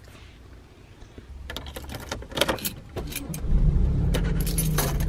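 Keys jangling and clicking on a key ring as the car key is turned in the ignition; about three and a half seconds in, the car's engine starts and runs with a steady low rumble.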